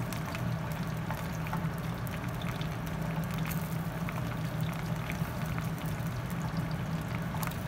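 Silicone spatula stirring and scraping mashed potatoes in a stainless steel pan, with a light scattered crackle of the potatoes sizzling as they are gently reheated over medium heat. A steady low hum runs underneath.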